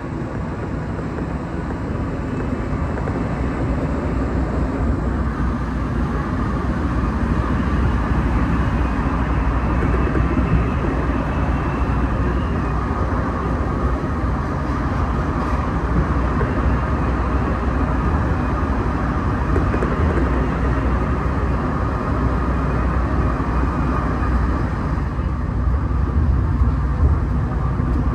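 Inside a rubber-tyred Alstom NS-93 metro car running between stations: a steady low rumble with a faint whine. It grows louder over the first several seconds, then holds level.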